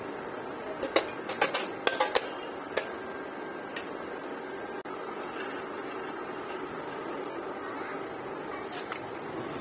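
Thin rusty sheet-steel pieces being handled and set down on a concrete floor: a quick run of sharp taps and clinks between about one and three seconds in, one more a second later and a couple of faint ones near the end, over a steady background hiss.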